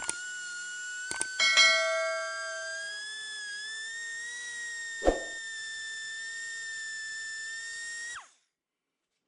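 Air die grinder with a carbide burr whining at high speed while gouging a crack in a cast-iron casting, its pitch wavering slightly with the load. The whine drops and cuts off abruptly about eight seconds in. About a second in, a couple of clicks and a bell-like chime sound over it, and a single sharp knock comes about five seconds in.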